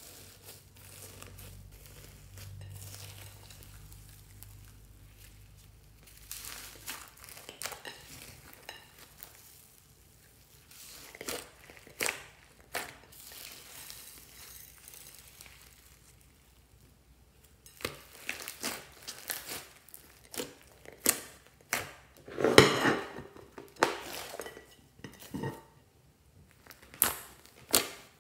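Fluffy slime being mixed and kneaded by hand with foam beads, sprinkles and gold foil in a glass bowl: crinkling and crunching, with irregular sharp crackles and clicks that come thicker and louder in the later part.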